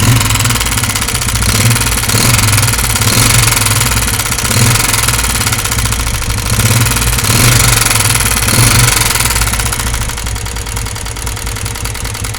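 Honda CG125's air-cooled single-cylinder pushrod engine running with a loud, rapid clattering tick from the top end. The owner calls it a very dangerous-sounding noise and traces it to excessive play in one valve tappet. The engine settles somewhat quieter after about ten seconds.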